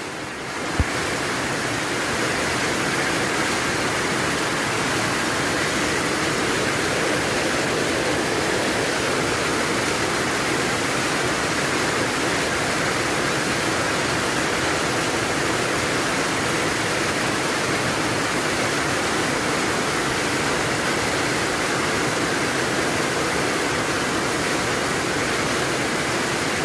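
Heavy rain falling, a steady dense hiss with no change through the whole stretch, and a single sharp click about a second in.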